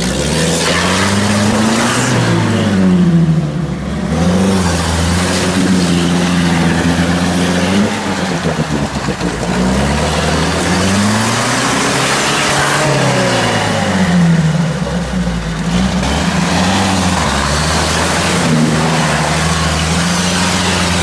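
UAZ-469 engine revving hard to work the jeep free of deep mud, its revs climbing and falling about six times. The wheels churn through mud and water.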